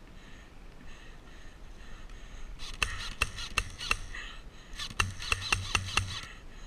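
Airsoft rifle fire: two quick strings of sharp shots, about four and then about five, roughly three shots a second.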